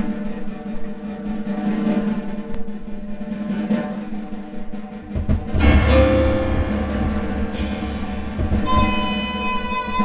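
Live music with drums and percussion under several held tones. The low drums grow louder about halfway through, and a high held tone comes in near the end.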